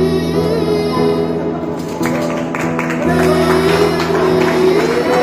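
Music: a Jain devotional song (bhajan) playing, a held, gently wavering melody over steady sustained backing, with light rhythmic percussion joining about two seconds in.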